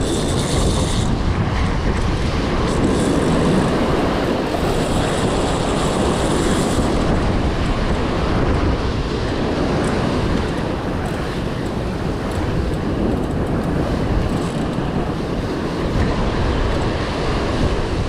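Rough sea surging and breaking against the rocks just below, mixed with wind rumbling on the microphone: a loud, steady wash of noise.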